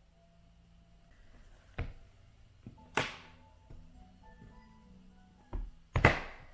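Tri-fold tablet case cover being flipped open and shut against the tablet, making four sharp slaps; the loudest comes near the end.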